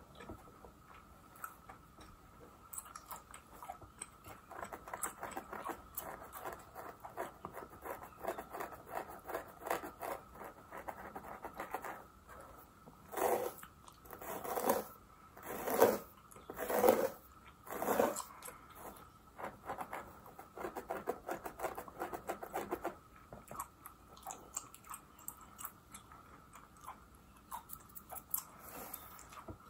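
Close-miked gum chewing with wet smacking clicks, over fine scratching of a fine-tooth comb and fingernails through a mannequin's hair at the scalp. A handful of louder smacks come about halfway through.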